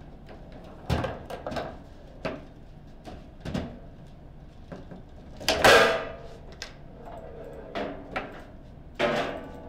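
Table football play: a run of sharp, separate knocks and clacks as the ball is struck by the figures on the rods. The loudest is a ringing crack about halfway through.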